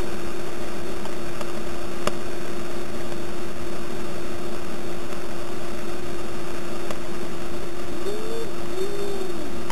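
Loud, steady rushing of a whitewater rapid, with a thin steady hum underneath. A brief rising-and-falling call is heard twice about eight to nine seconds in.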